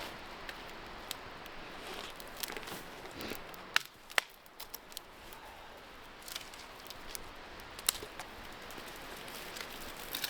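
Dry twigs and small branches of a fallen tree crackling and snapping as they are broken and pushed aside, in irregular clicks with two sharp snaps about four seconds in and another near eight seconds.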